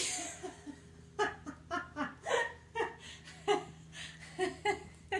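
A short burst of hiss at the very start, then a person laughing in repeated short bursts from about a second in.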